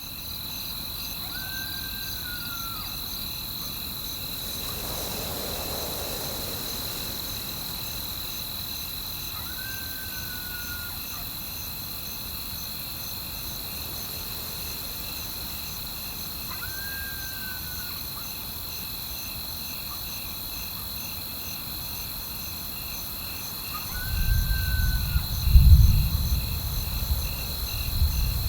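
Crickets trilling steadily, with a short arched whistled animal call repeating four times, about seven seconds apart. About 24 seconds in, a deep rumble of thunder rises and becomes the loudest sound, peaking briefly and then rumbling on.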